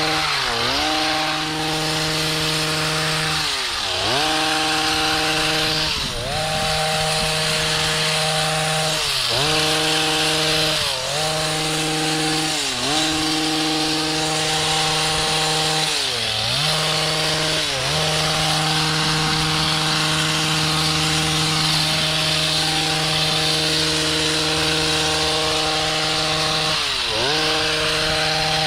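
Gas-powered hedge trimmer running at high revs, its engine briefly dropping in pitch and revving back up about nine times as the throttle is let off and squeezed again.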